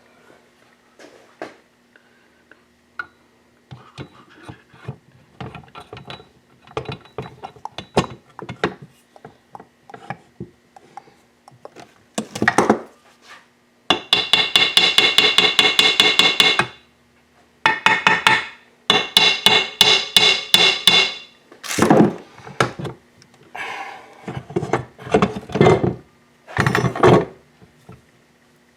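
Hand tools working on the Yamaha WR426F engine's crankcase halves as they are being drawn together: scattered taps and knocks, then from about halfway several fast runs of rapid, evenly spaced strikes, each a second or two long.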